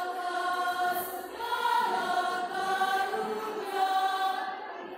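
Women's choir singing long held notes, moving to a new note about once a second.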